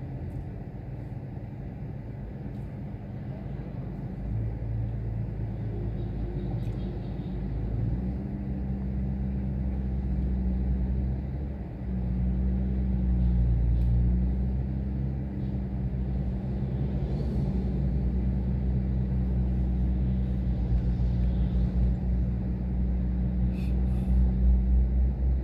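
Motor vehicle engines idling in stopped road traffic, heard from inside a car: a steady low hum that grows louder about eight seconds in.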